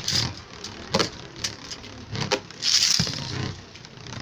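Beyblade spinning tops clattering in a plastic stadium: a series of sharp clacks and knocks, with a quick hissing whizz from a ripcord launcher near the middle as a second top is launched.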